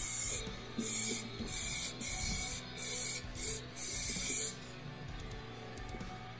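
Aerosol spray paint can spraying black paint in a series of short hissing bursts, about six, stopping about four and a half seconds in.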